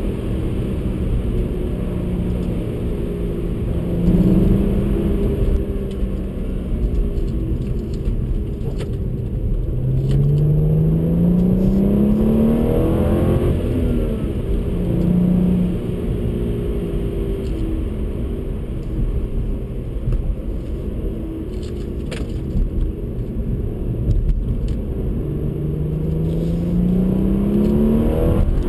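BMW 135i's turbocharged 3.0-litre N55 inline-six heard from inside the cabin, twice pulling hard with a steadily rising engine note, about ten seconds in and again near the end, with steadier stretches in between. Heavy road and tyre rumble underneath.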